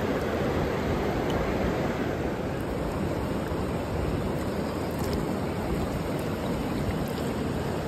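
Shallow, clear trout stream flowing steadily: an even wash of running water close by.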